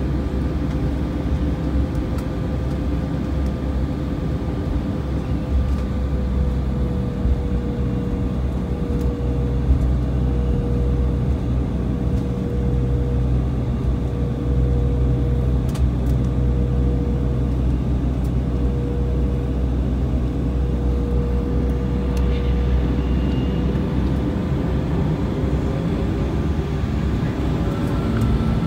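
Cabin noise of an Embraer E175's GE CF34-8E turbofan engines at low thrust as the jet taxis onto the runway: a steady low rumble under a high engine whine. Near the end the whine rises slightly in pitch.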